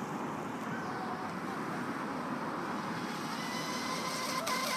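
28-inch lipo-battery electric RC speedboat running at speed across the water some way off: a steady rushing of its motor and spray.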